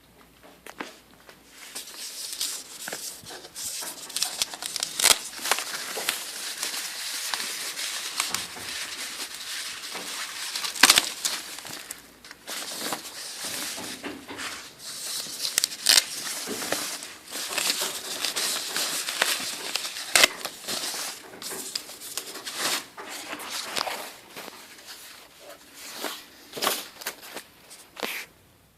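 Packing material being handled and unwrapped: continuous rustling and crinkling with many sharp clicks and crackles, easing off briefly about halfway through.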